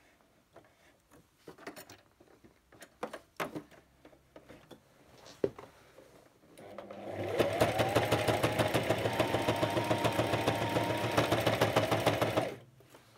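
Brother electric sewing machine running steadily for about six seconds, its needle stitching with a fast, even ticking, then stopping shortly before the end. Before it starts there are a few light clicks.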